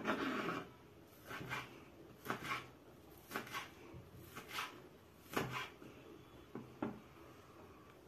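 A kitchen knife chopping chives on a wooden cutting board: short, unevenly spaced knocks of the blade on the wood, about one or two a second.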